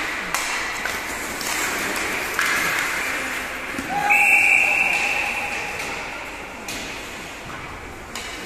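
Ice hockey game heard from the stands: rink noise with shouting voices and a few sharp knocks of sticks and puck. About four seconds in, a loud steady high-pitched tone sounds, strongest for about a second and then fading out over the next two.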